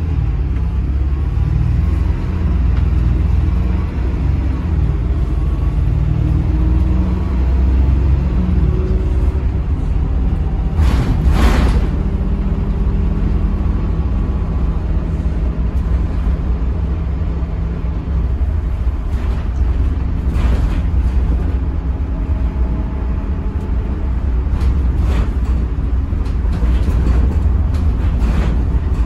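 Volvo B8RLE bus's six-cylinder diesel engine heard from inside the cabin, a heavy low rumble whose pitch rises and falls as the bus drives. A brief hiss comes about eleven seconds in.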